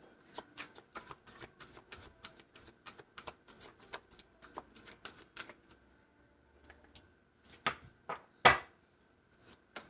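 A tarot deck shuffled by hand: a quick run of card flicks and slaps for about five seconds, then a few separate, louder taps of the cards near the end.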